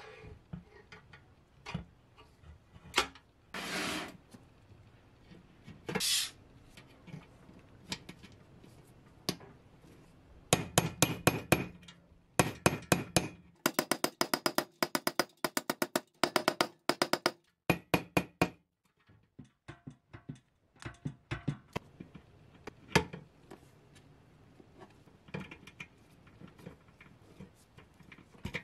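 A small hammer tapping on metal in quick runs of strikes, several a second, with pauses between the runs. There are also two short hisses a few seconds in.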